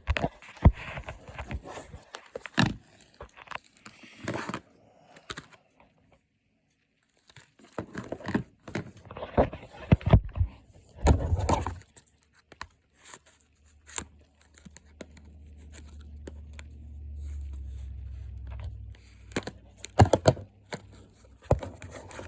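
Packaging being rustled, crinkled and torn open by hand, with scattered handling clicks and knocks. It goes briefly silent a few seconds in, and a low rumble runs for a few seconds later on.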